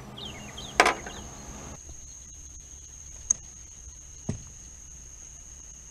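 A few short bird chirps and a single sharp knock about a second in, then a steady high-pitched insect chorus carries on, broken only by two faint clicks.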